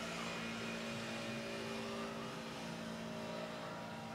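Steady whir of a running machine, holding several steady tones at once.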